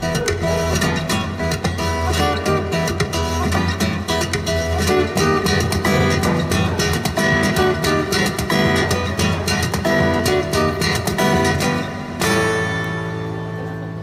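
Background music on guitar, a fast run of plucked notes, with a chord struck about twelve seconds in that rings out and fades.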